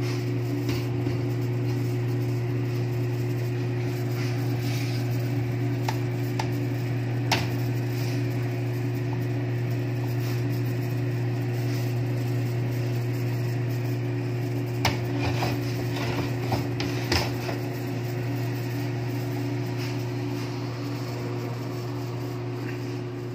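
Incubator circulation fan running with a steady low hum, a couple of fainter steady tones above it. A few light clicks come in the second half as the wire hatching baskets are handled.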